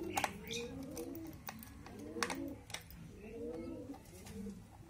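Pigeons cooing in repeated low calls that rise and fall, with a couple of sharp clicks from a screwdriver working a screw in a plastic toy car's base.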